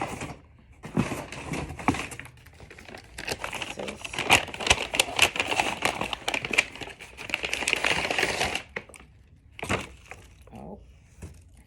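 Packaging crinkling and rustling with many small crackles as it is handled, stopping about nine seconds in, followed by a few scattered clicks.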